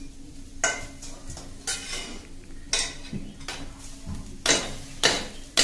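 Steel spoon scraping and clanking against a metal kadai while stirring, then a perforated steel colander knocking against the pan's rim as cooked rice is pushed out of it with the spoon: about eight separate metal clatters, the loudest near the end, over a steady low hum.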